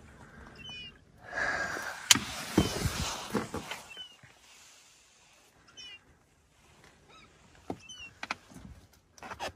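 Water splashing and sloshing around an inflatable boat as a sea lion swims close alongside, loudest from about one to four seconds in with a few sharp knocks against the boat. Short high chirping calls sound several times.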